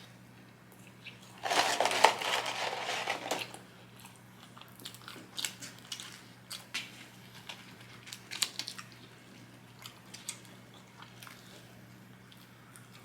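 Eating close to the microphone: a loud crunchy bite of fast food lasting about two seconds, then chewing with scattered small wet clicks.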